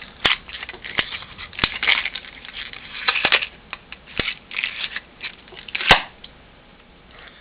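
Knife cutting open a stiff plastic blister package: scraping and crackling of the plastic, with several sharp snaps, the loudest about six seconds in.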